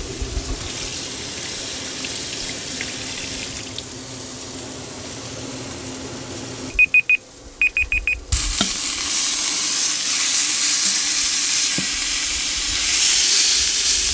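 Steaks sizzling in a cast-iron skillet, with a low steady hum underneath. About seven seconds in, the sizzle drops away while a phone timer beeps, two short beeps and then four more. After that the sizzling comes back louder.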